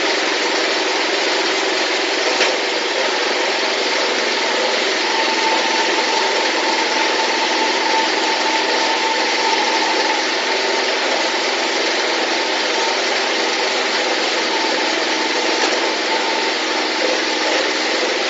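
Mobile diesel drum concrete mixer running steadily, its engine noise even and unbroken, with one brief click about two and a half seconds in.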